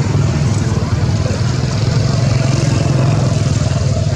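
A motor vehicle engine running steadily: a low, even drone with a fast pulsing beat.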